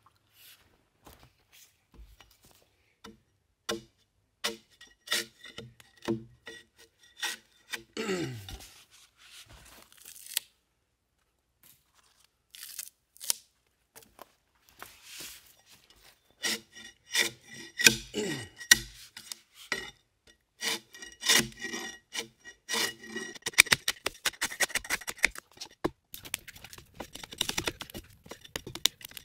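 A flat-bladed bark spud scrapes along a log in repeated short strokes, peeling the bark off, with bark strips tearing and rustling free. Twice there is a short falling creak, and the strokes come quicker and denser near the end.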